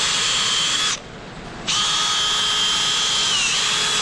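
Power wire brush spinning against an oil filter adapter housing, cleaning it off. It stops for under a second about a second in, then runs again steadily, its whine dipping briefly in pitch near the end.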